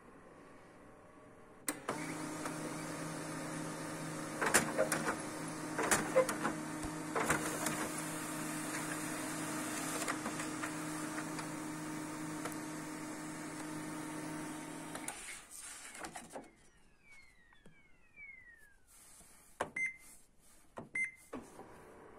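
HP LaserJet Pro MFP M127fw laser printer, with a freshly replaced rubber pickup roller, running a test print. Its motors start about two seconds in with a steady hum and a few sharp clicks as a sheet is picked up and fed. It runs until about fifteen seconds, then winds down with a faint falling whine and two short clicks near the end.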